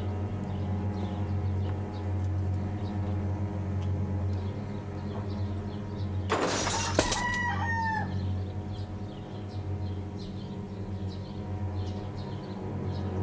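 Chickens in a barn: faint short clucks over a steady low hum, then about halfway through a sudden rush of noise like flapping and rustling, followed by a short squawking call that rises and falls.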